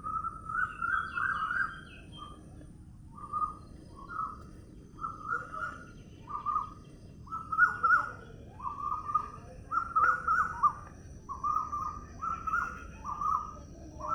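A bird calling over and over in short repeated notes, roughly two a second, with brief gaps. A faint steady outdoor background hiss lies underneath.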